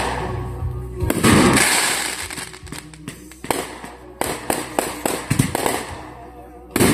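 Aerial fireworks exploding: a loud boom about a second in that fades out, followed by a scatter of smaller crackling pops, and another boom near the end.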